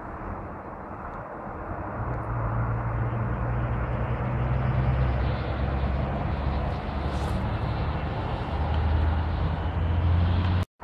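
A low engine drone swells in about two seconds in and holds steady over a continuous rushing noise, then cuts off suddenly near the end.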